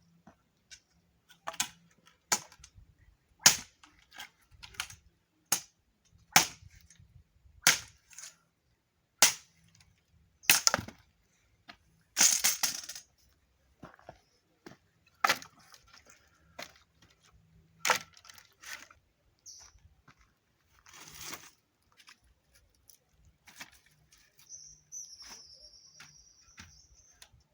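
Pieces of firewood knocking and clattering as they are stacked into a bonfire: a series of sharp, irregular knocks, with a longer scraping clatter about twelve seconds in. A brief high whistle sounds near the end.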